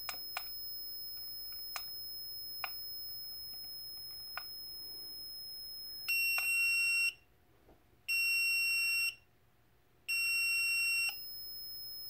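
A DT830 multimeter's continuity tester sounds a steady high beep while its probes bridge the smoke detector's normally closed relay terminals. About six seconds in, the smoke detector's test alarm gives three loud one-second beeps about a second apart, and the tester's tone cuts out because the relay opens in alarm. After the third alarm beep the continuity tone comes back as the relay closes again.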